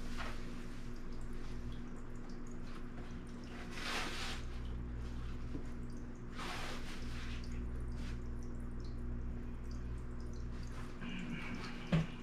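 Clothes rustling as a pair of pants is unfolded and handled, with louder swishes about four and six and a half seconds in, over a steady hum and water trickle from an aquarium filter.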